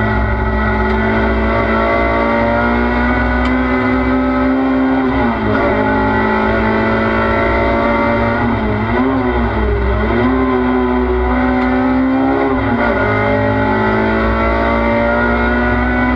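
Race car engine heard from inside the cabin, running hard at high revs. The engine note dips briefly about five seconds in, and again twice around nine to ten seconds in, as the driver changes gear, with road noise underneath.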